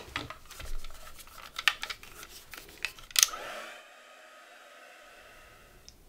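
Clicks and clatter of a small corded handheld dryer being picked up, then a sharp click as it is switched on and its motor runs with a steady whine for a couple of seconds, drying the acrylic paint on the gel plate. The whine cuts off near the end.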